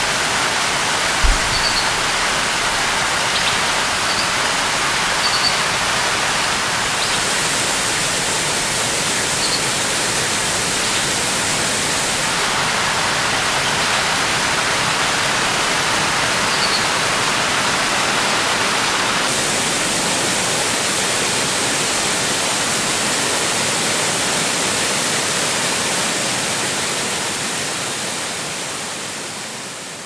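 Waterfall: a steady rush of water falling over rock ledges and splashing into a pool, its sound shifting a few times between falls. It fades out near the end.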